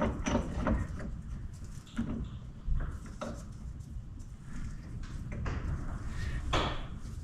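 A few scattered metal clinks and knocks as a wheel bearing press tool is fitted by hand and its long screw hand-tightened, the sharpest knock about a third of the way in and another near the end.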